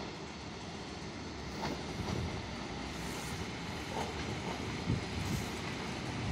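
Eight-car ER9M electric multiple unit running into the platform: a steady rumble of wheels on rail that grows slightly louder as the train nears, with a few sharp clacks.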